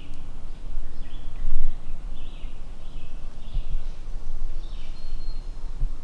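A low, uneven rumble on the microphone, with small birds singing faintly in short phrases through the woods.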